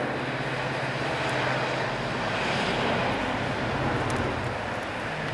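Diesel freight locomotive running past with its engine humming steadily, followed by the rumble of the container wagons it hauls; the sound swells in the middle and eases towards the end as the locomotive moves on.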